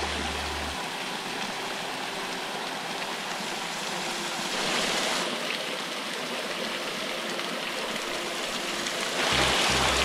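A waterfall about 20 feet tall, at low summer flow, pouring steadily into its pool as an even rush of falling water. The rush swells a little about halfway through and again near the end. Faint background music plays underneath, with bass notes at the start and near the end.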